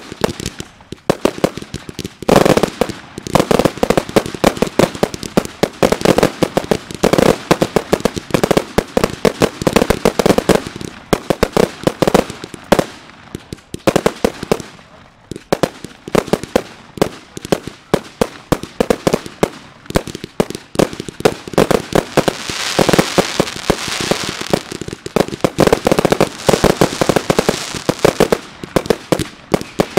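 Aerial firework display: a rapid, near-continuous barrage of bangs from bursting shells, broken by a few short lulls. About two-thirds of the way through, a spell of crackling effects joins the bangs.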